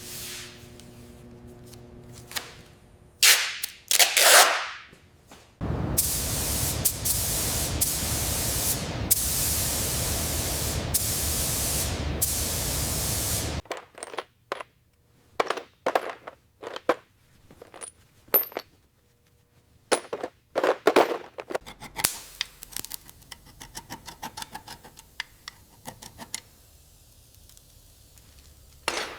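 Workshop sounds of stripping a bus body. Two loud scraping sweeps come first, then a loud steady rushing hiss that lasts about eight seconds and stops abruptly. The rest is a string of irregular sharp clicks and knocks.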